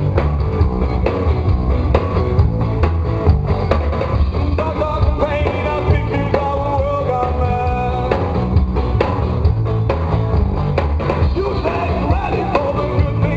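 Live rock band playing loud and continuous: electric guitar over a drum kit beat, with a melodic guitar line standing out midway.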